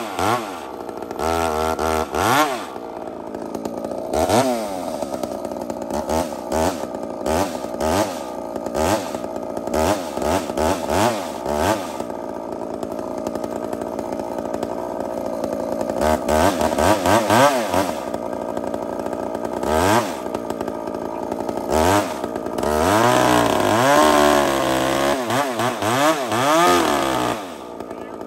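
Large two-stroke chainsaw with a long bar, boring lengthwise into a big square timber. The engine revs up and down in repeated bursts, with a few seconds of lower, steadier running near the middle and a drop near the end.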